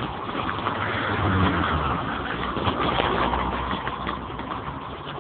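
Floodwater rushing steadily past the bridge, with a deeper rumble swelling about a second in.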